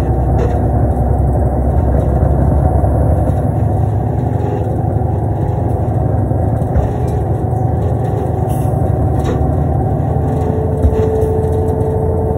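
Inside a 2005 New Flyer D35LF transit bus under way: the Cummins ISL six-cylinder diesel and Allison B400R automatic running, with a steady drone of engine and road noise through the cabin. A steady whine comes in near the end, and a few light rattles sound along the way.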